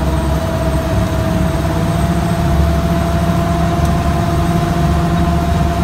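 Amphibious Duck tour vehicle's engine running steadily under way, heard from inside the open passenger cabin: a constant low drone with a thin steady higher tone over it.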